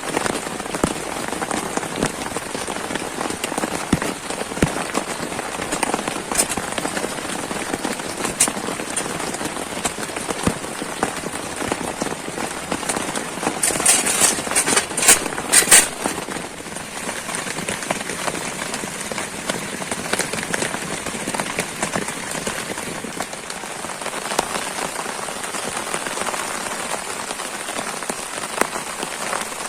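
Pouring rain falling steadily, with a quick run of sharp clicks or knocks about halfway through.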